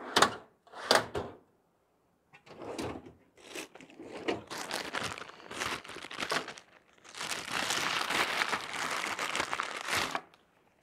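Close handling noise: two sharp knocks, then a long stretch of rustling and scraping as small objects are handled right by the microphone, thickest and loudest in the last three seconds.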